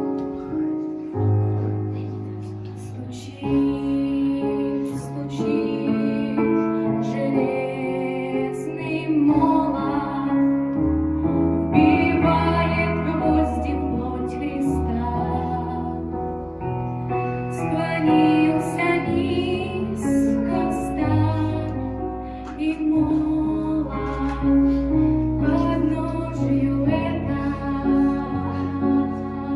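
Music: a Christian song sung by a woman over piano or keyboard accompaniment, the voice coming in a few seconds after the instrumental opening.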